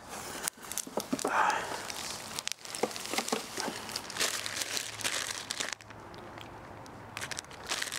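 Plastic packaging crinkling and rustling as a small plastic bag of parts is handled and worked open, dying down about six seconds in.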